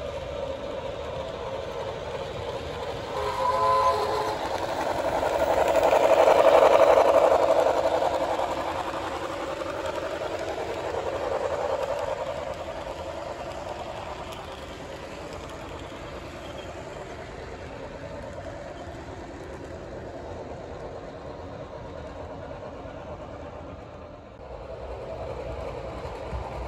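HO scale model passenger train running past close by. Its rolling wheel noise swells to a peak and fades over a few seconds. Just before, a short broken horn-like tone sounds, typical of a sound-equipped model locomotive.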